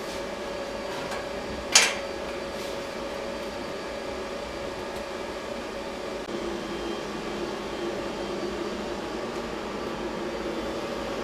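Steady mechanical hum of workshop equipment, with one sharp knock about two seconds in as the engine is set down onto its mount plate on the steel frame.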